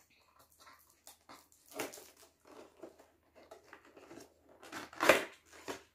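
Cardboard product box being opened by hand: irregular crackling and tearing of the flap, with a louder rip about five seconds in.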